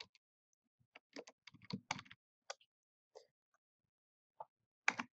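Computer keyboard typing: a quick run of keystrokes about a second in, then scattered single taps, with a louder click near the end.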